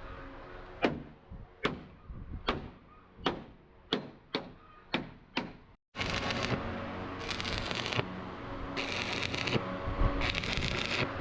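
About eight sharp hammer blows on steel, each ringing briefly, roughly one every 0.8 s. Then, after a short break, four bursts of harsh crackling hiss from metalworking on the chassis over a steady workshop din.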